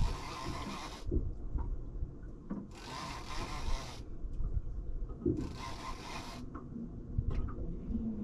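Fishing reel being wound in, in about four one-second rasping bursts spaced a couple of seconds apart, while a fish is played from the boat, with low knocks and rubbing between the bursts.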